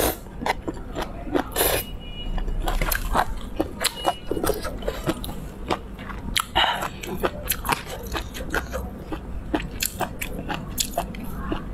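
Close-up eating sounds of someone eating rice noodles in spicy broth: chewing with many quick, wet mouth clicks, and a few louder slurps or bites now and then.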